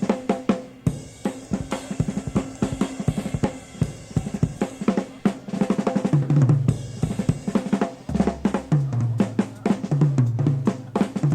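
Live jazz-fusion band off a cassette taped from an FM broadcast: a busy drum kit with snare, bass drum and cymbals, playing fills and rolls. A bass line comes in about six seconds in and grows stronger near the end.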